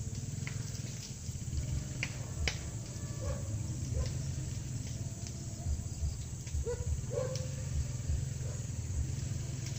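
Outdoor rural ambience: a steady low hum with irregular low thumps, scattered faint clicks, and a few short chirping animal calls, strongest about three and seven seconds in.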